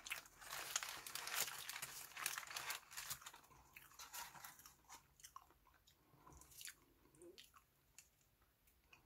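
Close-miked chewing of a mouthful of hamburger with shredded lettuce. Dense crunching for the first three seconds or so thins to scattered soft crunches and mouth clicks, which fade away.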